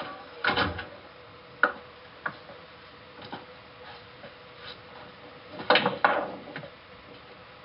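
Billiard balls clacking on a pool table as a ball is sent rolling by hand: a few sharp single clicks, then the loudest quick cluster of knocks about six seconds in. It plays through a screen's speaker with a faint steady hum underneath.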